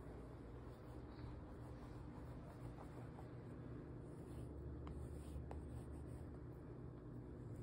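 Charcoal scratching across drawing paper and fingers rubbing the strokes to smudge them, faint, over a low steady hum, with two light ticks about five seconds in.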